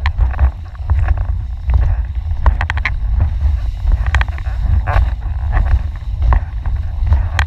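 Wind buffeting the microphone of a camera mounted on a windfoil board: a steady low rumble, broken by frequent short sharp ticks and splashes of water spray against the board and rig.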